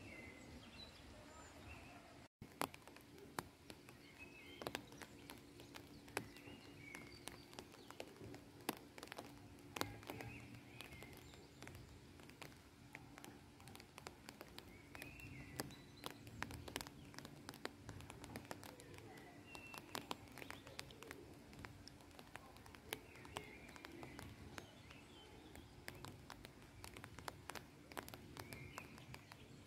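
Faint outdoor ambience with a bird chirping every few seconds in short calls, over scattered light clicks and a faint steady hum.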